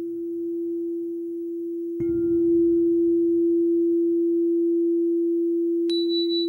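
Meditative background music: a steady, low, pure drone tone like a singing bowl, sounded afresh about two seconds in, with high bell-like tones coming in near the end.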